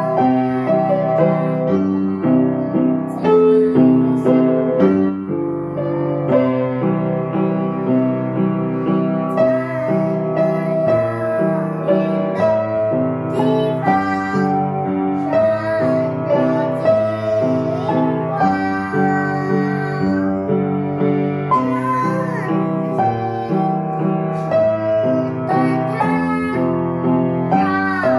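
A young girl singing a children's song with an upright piano accompanying her.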